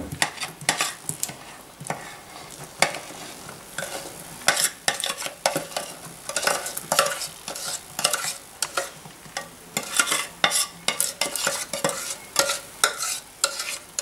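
Spoon scraping and clicking around the inside of a stainless steel saucepan as hot caramelised sugar and almonds are scraped out onto an oiled stone countertop, in quick irregular strokes.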